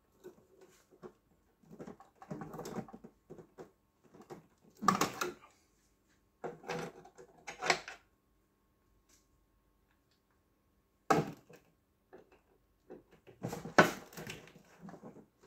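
Irregular clicks, knocks and rustling as charger parts and tools are handled during reassembly, with a few louder knocks and a quiet pause in the middle.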